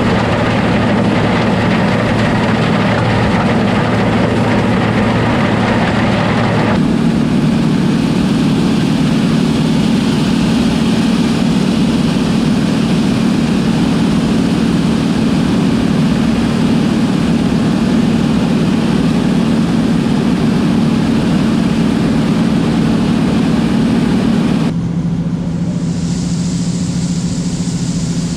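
Heavy diesel engine of a combine harvester running steadily, its tone changing abruptly about a quarter of the way in and again near the end.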